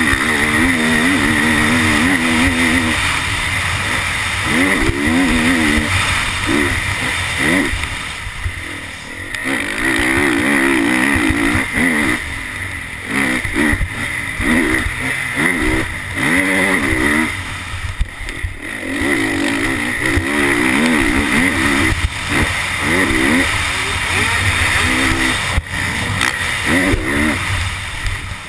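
Honda CRF450R's single-cylinder four-stroke engine at full race pace, the throttle opening and closing again and again so the revs climb and drop, heard on board the bike. Two brief lulls, about a third and two-thirds of the way through, where the throttle is shut.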